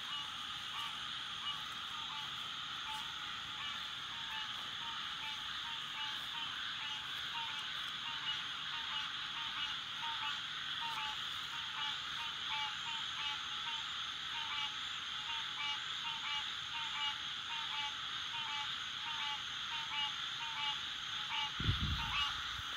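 Dense nighttime chorus of frogs: a steady high din with one call repeating about twice a second. A brief low thump comes near the end.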